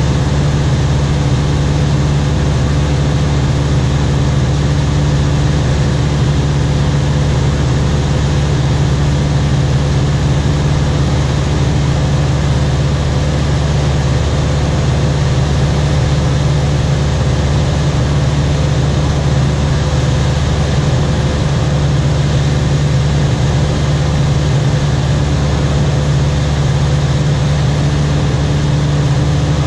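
A high-wing light aircraft's engine and propeller running steadily in flight, heard from inside the cabin as an unbroken low drone with a steady rush of air.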